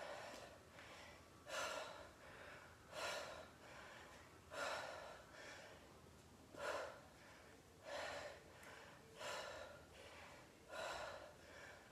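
A woman's sharp, forceful breaths out, one with each punch-and-twist of a lunge exercise, coming about every one and a half seconds. Quieter breathing runs between them.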